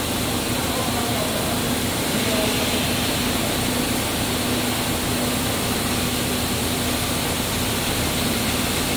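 Bread-dough processing machinery running steadily: an even hiss with a constant low hum.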